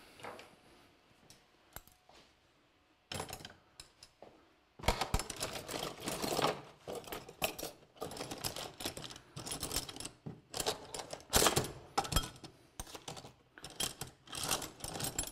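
Busy, irregular clinking and rattling of metal: bonsai wire and hand tools such as wire pliers being handled and knocked together. The sound starts about three seconds in and grows denser about five seconds in.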